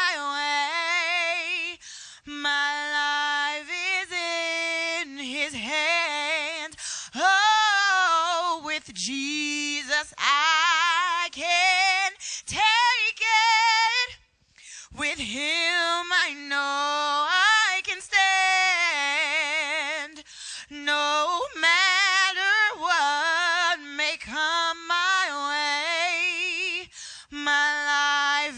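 A woman sings a gospel song solo, with no accompaniment heard. She holds long notes with a wide vibrato and slides through runs, with a brief pause for breath about halfway through.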